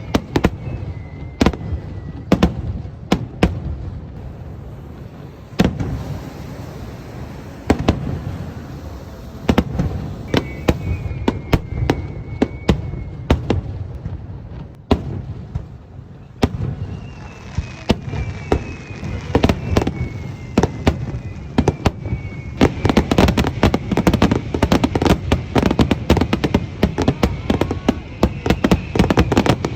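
Aerial fireworks shells bursting with sharp bangs, now and then with a thin whistling tone sliding down in pitch. From about halfway through the bursts come thick and fast with crackling.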